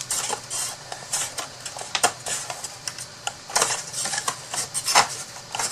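Irregular light clicks and taps of the cut-out pieces of a craft storage box being handled and fitted together by hand, with a few sharper knocks among them.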